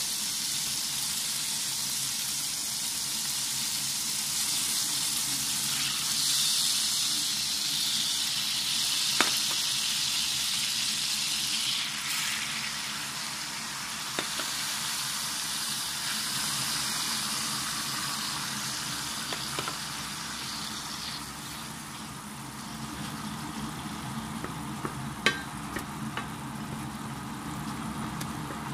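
Fruit jam syrup sizzling and bubbling in a stainless steel frying pan with leftover chicken-frying oil: a steady hiss that softens somewhat in the second half, with a few sharp clicks, the loudest about 9 and 25 seconds in.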